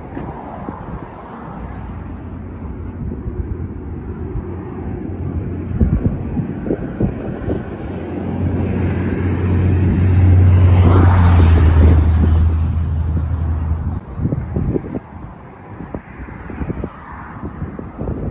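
Road vehicle running, a steady low engine hum with road noise that grows louder toward the middle and drops off suddenly about fourteen seconds in.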